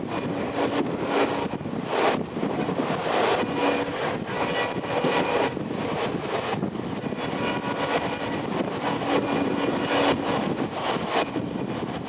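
EMD diesel locomotive working hard under acceleration, a steady engine drone heard from a coach behind it, with wind rushing past and the train running on the rails.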